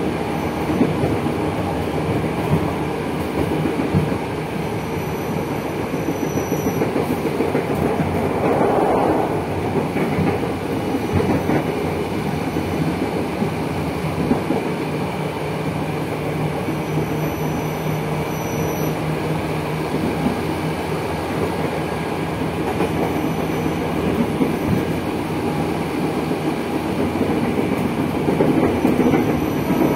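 Running sound of a Tokyu 8500 series electric motor car with Hitachi traction motors, heard from inside the passenger cabin: a steady rumble of wheels and motors on the rails, with a brief louder rush about nine seconds in.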